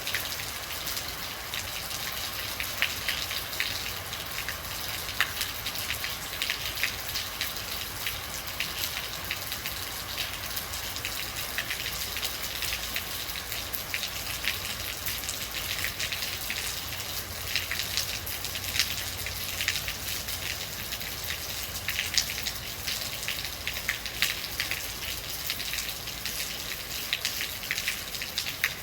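Steady rain falling, with many individual drops pattering on a surface over a continuous hiss and a low rumble underneath.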